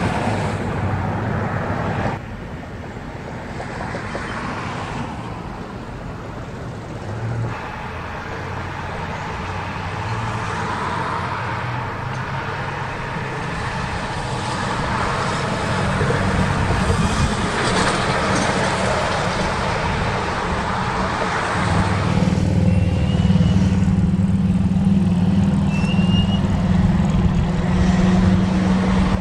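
Road traffic: pickups and large motorhomes towing horse trailers drive past, engines running and tyres on the pavement. About three quarters of the way through, a louder, deeper steady engine hum sets in as a big motorhome pulling a horse trailer passes close.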